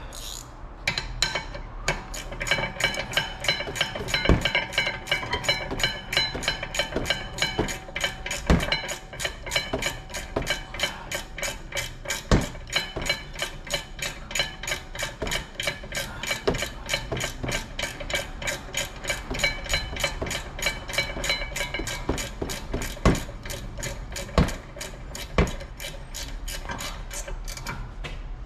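Hand ratchet clicking rapidly and without a break as it runs down the 17 mm caliper bracket bolts on a rear disc brake, with a few louder metal knocks along the way.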